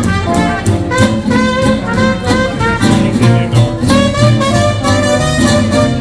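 Small hot-jazz band playing a 1920s–30s style swing tune live, with horn melody lines over a bass line and a steady beat.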